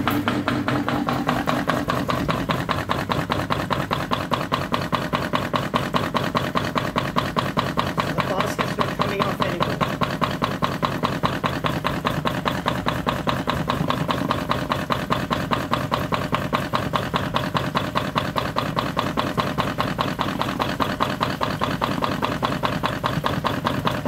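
Devanti portable washing machine (PWM-S-46-BU) on its spin cycle: the motor runs steadily as the spin basket, held onto the agitator by cable-tie locks, whirls with a fast, even pulsing.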